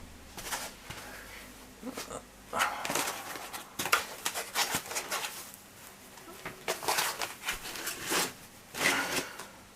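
Protective packaging being rustled and crinkled as it is pulled off, in irregular bursts with a few sharp clicks.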